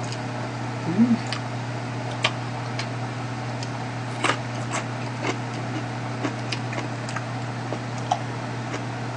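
Quiet eating at a table: chewing with scattered light clicks of chopsticks against dishes, over a steady low hum from an electric fan. A brief murmured 'mm' of a voice about a second in.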